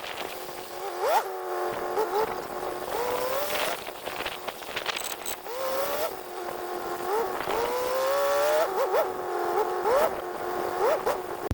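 An engine revving up and dropping back again and again, its pitch rising quickly several times and in a couple of longer, slower climbs.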